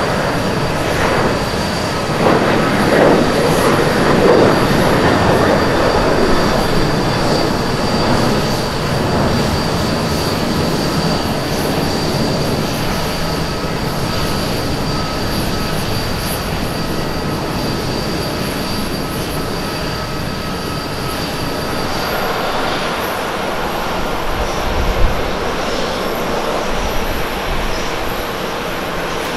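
Jet noise from a Boeing 737-800's CFM56 turbofans at takeoff power as it lifts off and climbs away: a broad, steady rumble, loudest in the first few seconds, with a steady high whine. About 22 seconds in it gives way to a steadier hum of airport apron activity, with one sharp thump a few seconds later.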